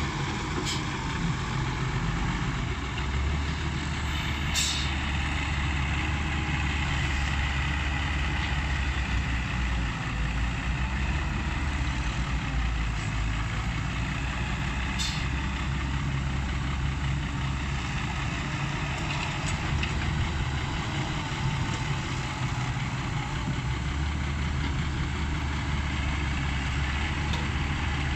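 Komatsu hydraulic excavator's diesel engine running steadily while digging, its low rumble swelling and easing as the load changes, with a few brief sharp sounds.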